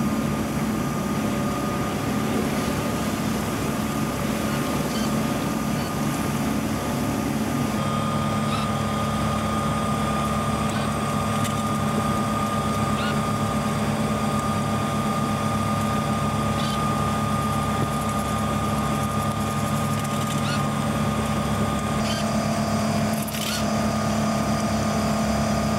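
Steady drone of the sailboat's engine running at a constant speed, with a short knock near the end.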